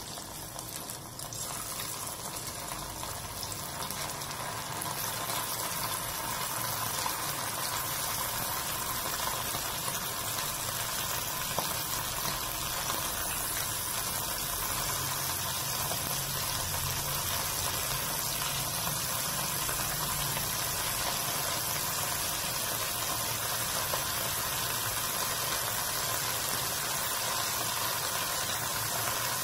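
Cornflour-coated anchovies deep-frying in hot oil: a steady bubbling sizzle that grows louder over the first several seconds as more fish go in, then holds even.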